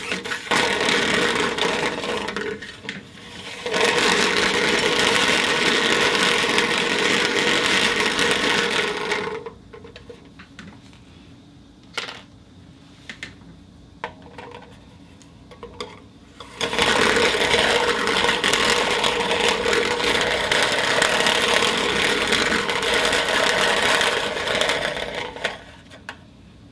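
Glass marbles rolling and rattling on a spinning turntable: a loud, steady rattle with a steady tone in it, dropping about nine seconds in to a quieter stretch of scattered separate clicks, then loud again for about eight seconds before dying away near the end.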